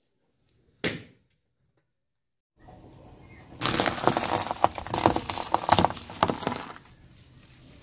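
A single sharp pop just under a second in. Then a car tyre rolls over stale bread rolls and crushes them: a dry crackling crunch full of snaps that lasts about three seconds, then dies away.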